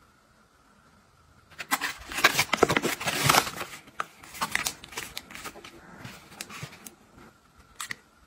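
Cosmetic packaging rustling and crinkling as an eyeshadow palette is unboxed by hand. It starts about a second and a half in and is loudest for the next couple of seconds, then turns to softer handling with scattered light clicks and taps, and one sharp click near the end.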